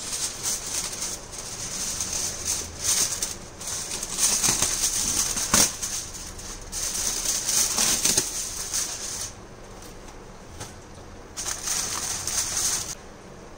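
Aluminium foil crinkling and crackling as hands press and crimp it around the rim of a non-stick pan, sealing it so the biryani's steam stays in for dum cooking. The rustling goes quiet about nine seconds in, then comes back briefly near the end.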